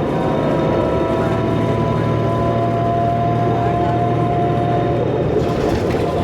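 Cummins ISL diesel engine of a 2005 New Flyer D40LF transit bus running under way, a steady turbocharger whine over the engine drone, its pitch creeping slightly upward. A brief hiss near the end.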